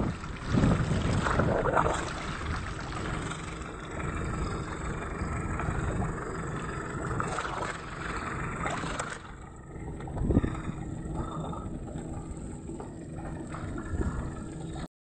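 Wind buffeting the microphone and water rushing and splashing around the stern of a moving boat, rising and falling in gusts. A faint steady hum comes in about nine seconds in.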